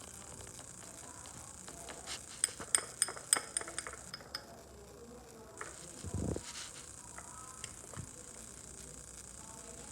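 Light clinks of a spoon against a dish, a quick run of them between about two and four and a half seconds in, then a single dull thump about six seconds in.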